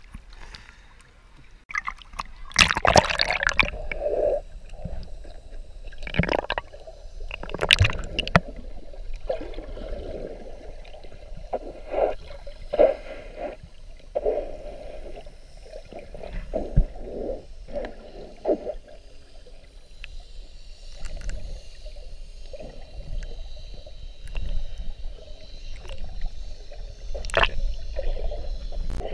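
Water sloshing and gurgling against a camera held just under the sea surface, heard muffled from underwater, with irregular surges and several sharp splashes or knocks, the loudest about three and eight seconds in and near the end.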